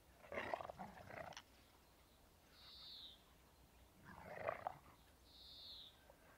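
A Hovawart and an English Setter puppy play-fighting, with rough play growls in two bursts, about half a second in and about four seconds in. A bird gives a short falling whistle twice in between.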